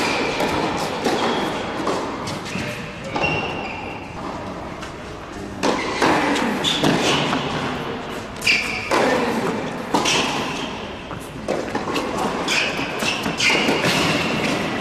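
Tennis rally on an indoor court: irregular thuds of racquet hitting ball and ball bouncing, echoing in the hall, with short high squeaks of shoes on the court surface.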